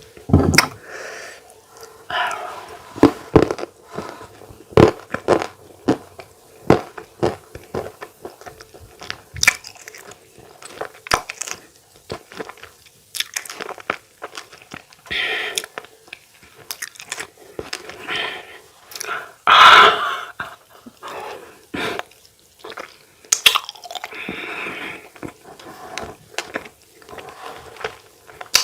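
Close-miked eating: chewing and mouth smacking, with many short, sharp clicks and crunches scattered throughout.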